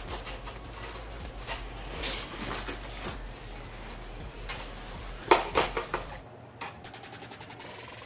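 Butcher paper rustling and crackling as it is pulled open by hand around a smoked brisket, with a burst of louder crackles a little past five seconds in.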